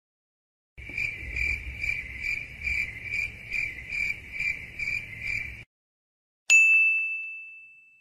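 Cricket chirping, about two pulsing chirps a second, which stops about five and a half seconds in. Then a single bright ding that rings on and fades away.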